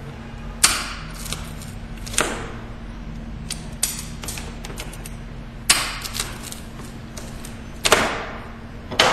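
Sharp metallic clacks and knocks, about six of them spaced a second or two apart, each with a short ring, as the excess ends of the door-hardware bolts are worked off with vice grips.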